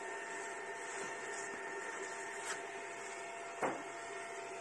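SUNLU S9 Plus 3D printer idling with its cooling fans running: a steady hum with several held tones. A single soft knock comes about three and a half seconds in.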